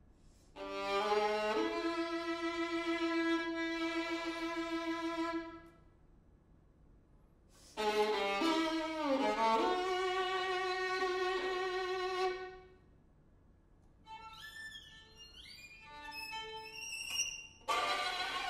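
String quartet playing: a long held bowed note, a pause, then a second held passage with a quick downward slide in the middle. After another pause come quiet, high, thin sliding notes, and near the end a sudden loud, dense passage.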